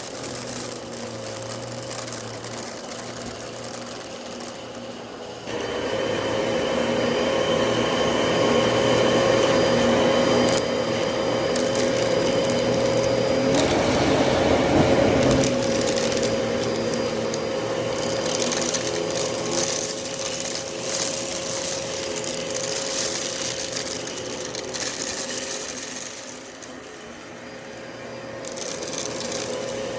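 Dyson DC33 upright vacuum cleaner running with a steady whine, with crackling and rattling as debris is sucked up. It gets louder about five seconds in and eases off briefly near the end.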